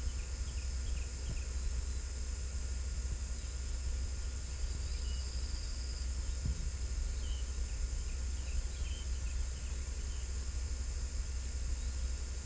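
Crickets trilling in one steady, unbroken high-pitched drone, with faint short bird chirps here and there and a low steady rumble underneath.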